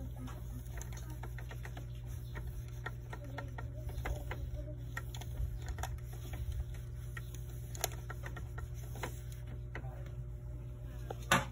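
Light, scattered clicks and scratches of a tissue and fingers wiping the plastic frame and glass strip of an Epson L6270 scanner's document feeder, over a steady low hum. A sharper click comes near the end.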